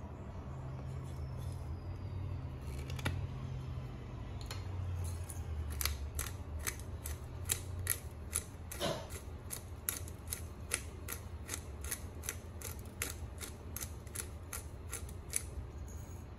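Hand-twisted pepper grinder cracking Tellicherry black peppercorns: a regular run of sharp clicks, about three or four a second, starting about six seconds in and lasting some ten seconds. A single knock comes before it, about three seconds in.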